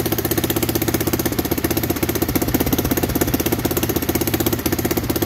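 Bashan 200cc ATV's single-cylinder engine idling steadily with a rapid, even pulse.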